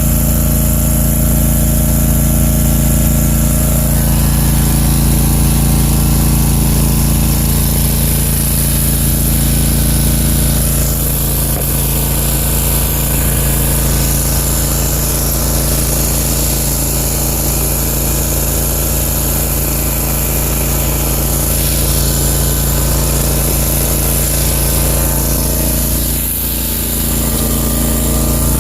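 Country Clipper zero-turn mower's engine running steadily while towing a rotary hoe across the lawn, dipping briefly in loudness near the end.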